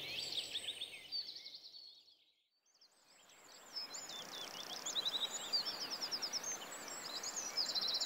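A flock of Bohemian waxwings calling: many high, thin trilled calls overlapping, over a faint outdoor hiss. The calls fade out about two seconds in and fade back in a second later, with a fast, even trill near the end.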